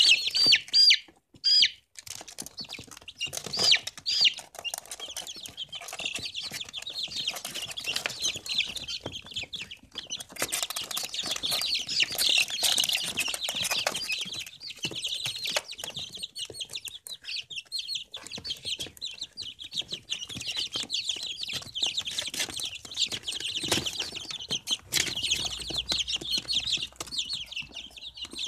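A group of chicks peeping: many short, high-pitched cheeps overlapping without a break, dropping out briefly about a second in.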